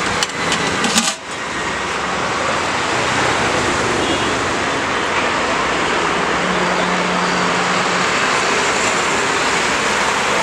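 Steady roadside traffic noise, with a few sharp clinks from a stainless steel pot lid being handled about a second in.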